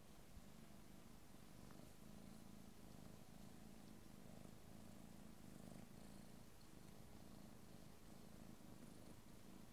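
A calico cat purring faintly and steadily, the purr swelling and easing with each breath, as she suckles her own tail.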